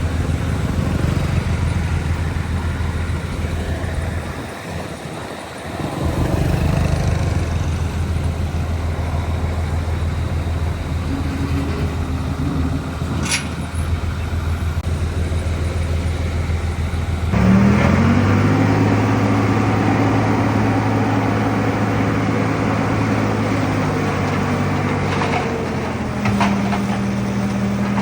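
Heavy diesel engine of earthmoving machinery running steadily. About two-thirds through, the sound changes abruptly and an engine revs up and holds at a higher speed, with a few metallic clanks near the end.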